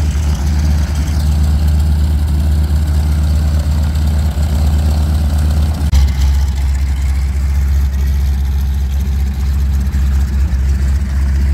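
A Boeing Stearman biplane's 450 hp Pratt & Whitney R-985 radial engine running steadily at low power while the plane taxis, with a deep, even rumble that shifts slightly about six seconds in.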